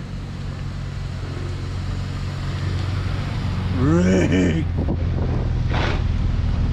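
Ford AU Falcon engine running steadily at low revs as the lowered car is driven slowly, with a brief voice about four seconds in.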